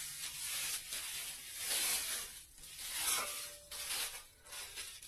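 Eggs frying in a pan: a sizzling hiss that swells and fades unevenly.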